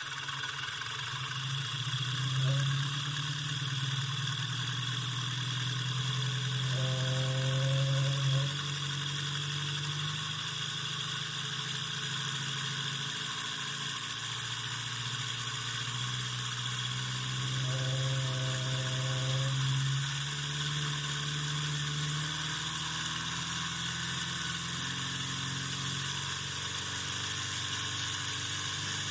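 Homemade brushed DC motor running steadily with a hum and brush hiss as its supply voltage is turned up. Twice a pitched vibrating buzz rises for a second or two. The vibration comes from an imbalance caused by its now-bent shaft.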